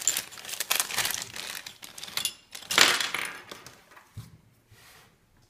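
Hands rustling and crinkling packaging while handling small oven nozzles, with scattered light clicks; the loudest rustle comes about three seconds in, and the handling dies away near the end.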